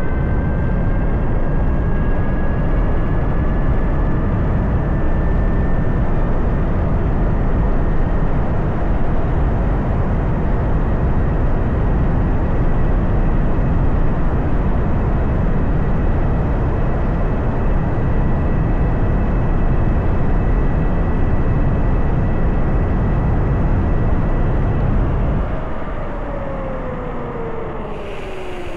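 Heavy wind rush on the microphone at speed over the high, steady whine of a CYC Photon Gen 2 mid-drive e-bike motor pulling near full power at about 38 mph. About 25 seconds in, the rush drops and a lower whine falls steadily in pitch as the bike slows.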